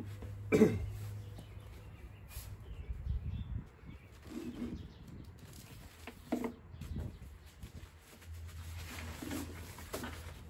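Nylon rain cover rustling and flapping in short bursts as it is handled and pulled over a cooler, over a low steady hum.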